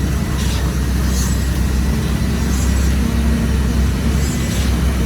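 Heavy diesel engine of a concrete truck running steadily with a deep rumble, with a few short hissing sounds over it.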